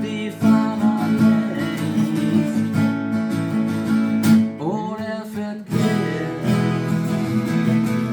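A song played on strummed acoustic guitar, with a short break in the low notes and sliding pitches about five seconds in.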